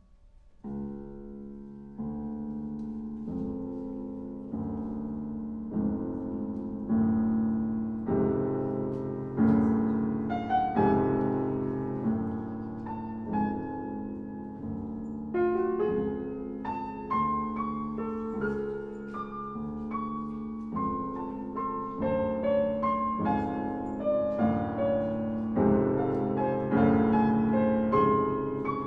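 Piano playing classical music. It enters about a second in with struck chords repeated at a steady pace over a held low note, and grows louder as a melody rises above the chords.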